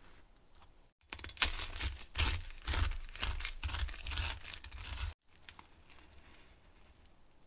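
Crunching and crackling of a loaf's oven-toasted crust being cut in half, a dense run of sharp crunches with low knocks from the board, from about a second in until it stops abruptly about five seconds in. Afterwards only faint soft clicks as the halves are pulled apart.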